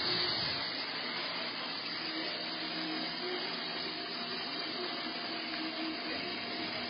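1998 Mazak VTC-16A vertical machining centre running under power: a steady whirring hum with a faint steady tone running through it.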